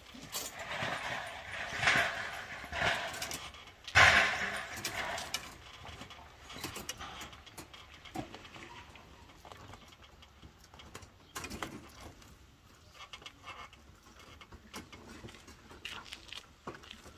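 Leafy branches rustling and shaking with scattered knocks and snaps as a person works up in a tree tying a nest box in place. The rustling is heaviest in the first few seconds, with two louder surges, then thins to occasional clicks.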